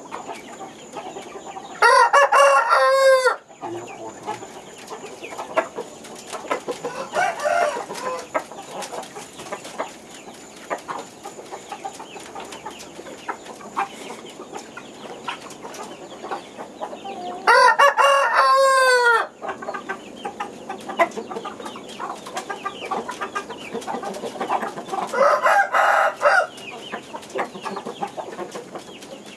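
A rooster crowing: loud crows about two seconds in and again about eighteen seconds in, a weaker one around twenty-five seconds, and a faint crow near seven seconds. Light clicks and rustles fill the gaps.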